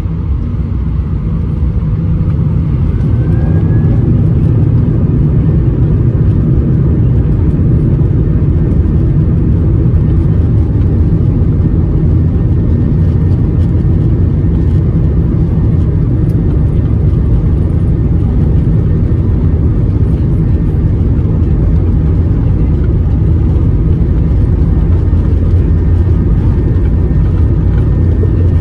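Airbus A320 jet engine and cabin noise heard from inside the cabin: it swells over the first few seconds into a loud, steady low rumble. A brief rising whine comes about three seconds in.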